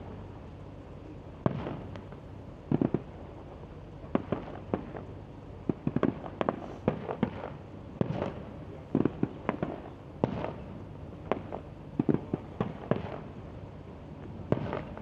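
Fireworks display: a string of irregular bangs from shells bursting, some in quick clusters, over a steady background murmur.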